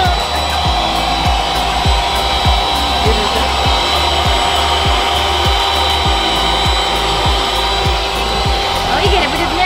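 Electric air pump blowing steadily as it inflates an inflatable swim ring. Music with a steady beat of about two kicks a second plays over it.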